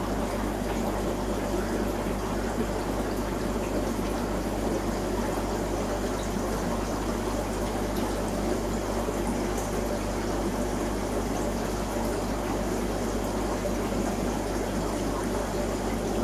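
Aquarium filtration running: a steady rush of moving water over a low, constant hum.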